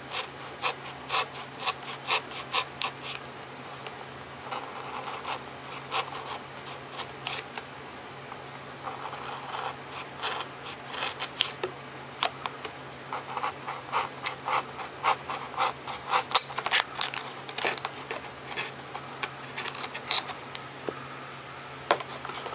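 Hobby knife cutting a servo pocket into a painted foam tail boom: runs of short, quick scratching strokes, coming in bunches with brief pauses between.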